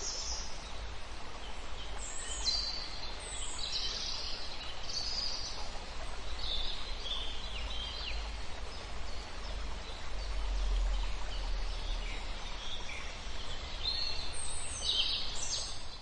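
Birds chirping: many short, high calls, often overlapping, over a low steady rumble.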